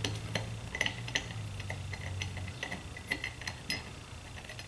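Light, irregular metallic clicks and ticks of small carburetor parts being handled and fitted against a Tillitson Model X carburetor body.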